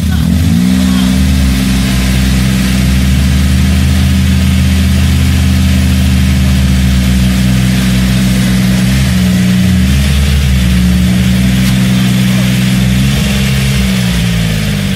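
DTZ 4244H mini tractor's diesel engine revving hard and held at high revs under load as the tractor struggles in deep mud. The revs climb at the start, dip briefly twice, in the middle and near the end, and rise again.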